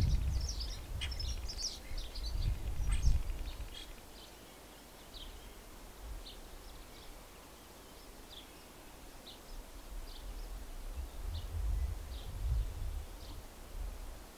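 Outdoor spring ambience: small birds give short high chirps, a quick flurry of them at first and then roughly one a second. A low, gusty rumble of wind on the microphone rises over the first few seconds, fades, and returns near the end.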